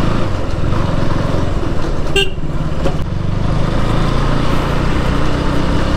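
KTM Duke single-cylinder motorcycle engine running steadily at low speed, with a short horn toot about two seconds in.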